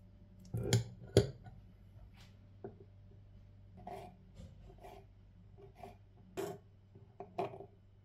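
Small kitchen knife cutting capers on a wooden cutting board: two sharp knocks about a second in, then a scatter of short taps and scrapes of the blade on the wood.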